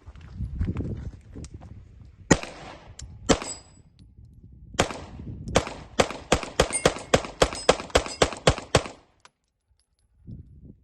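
Glock pistol in a KIRO Morph carbine conversion kit being test-fired. Two single shots about a second apart, two more, then a rapid string of about fourteen shots at four to five a second, stopping about nine seconds in.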